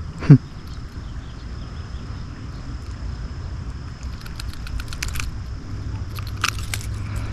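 Handling noise of a caught bass on the line: a steady low rustle, a short loud sound falling in pitch near the start, then two clusters of rapid small clicks about four and six and a half seconds in.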